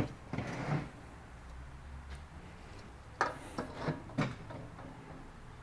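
A steel tubular turbo exhaust manifold being handled and turned over on a workbench: a scraping shuffle in the first second, then several metal knocks and clunks about three to four seconds in.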